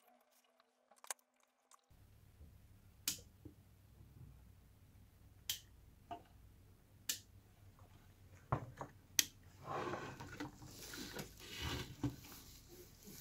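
Handling noise at a workbench: scattered sharp clicks and taps, then a few seconds of rustling and scraping, over a faint low hum.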